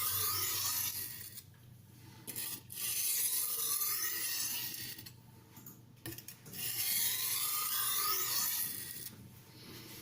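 A kitchen knife blade scraping along a wet silicon carbide sharpening stone under only the knife's own weight, a gritty rasp. It comes in three long, slow strokes, each a couple of seconds, with short pauses between.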